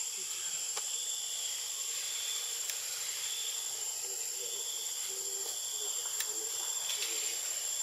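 Insects droning steadily in the forest canopy, a constant high-pitched whine with a second, fainter tone below it, and a few faint ticks.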